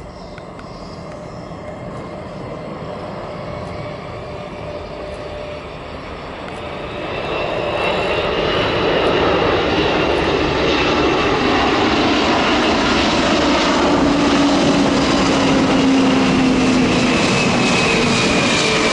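Antonov An-124 Ruslan's four D-18T turbofan engines on landing approach. The engine noise grows much louder about seven seconds in as the aircraft comes close, and a high turbine whine slowly drops in pitch near the end.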